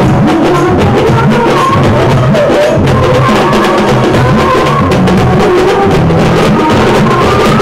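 Loud music of fast, dense drumming with a wavering melody line over it, going on without a break.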